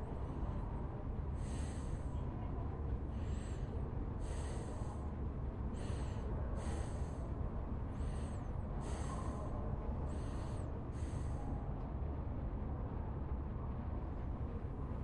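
A steady low rumble of a library ambience bed, with about ten short, high, hissing chirps roughly once a second that stop about twelve seconds in.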